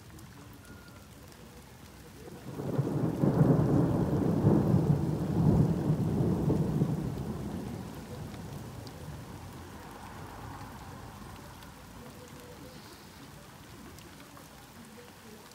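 A long roll of thunder over steady rain: it breaks in suddenly about two and a half seconds in, rumbles loudly for several seconds, then slowly dies away.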